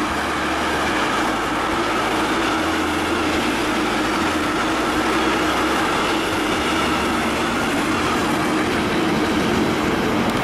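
Freight train of container wagons passing close by: a steady loud noise of wheels running on the rails.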